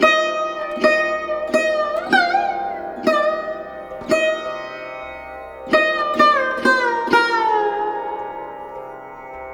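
Background music: a plucked string instrument playing slow single notes with sliding pitch bends over a steady ringing drone, a pause about four seconds in, then a few more notes, the last left to ring and slide down.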